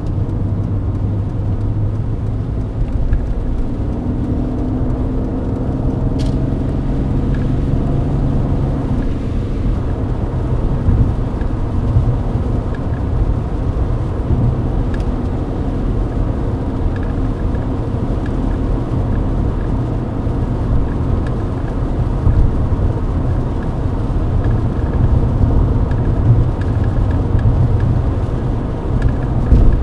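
Mercedes-Benz W124 E-Class cruising on a rain-wet highway: a steady low engine drone under the rumble and hiss of tyres on the wet road, heard from inside the cabin.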